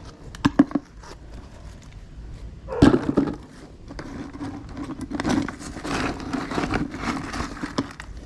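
Handling noise from scrap being sorted: a few sharp knocks, a loud thump about three seconds in, then several seconds of rustling and scraping.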